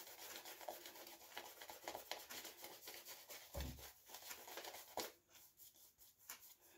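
Two-tone shaving brush rubbing soap lather over a shaved scalp: a faint, rapid scratchy swishing of bristles. It thins out about five seconds in.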